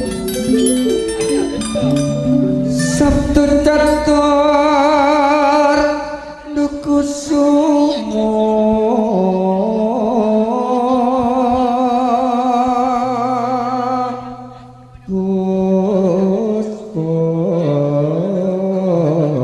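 Javanese gamelan music: stepped metallophone-like notes at first, then a long, slow melodic line with wide vibrato over held low notes. The music thins briefly about six seconds in and again near fourteen seconds before picking up again.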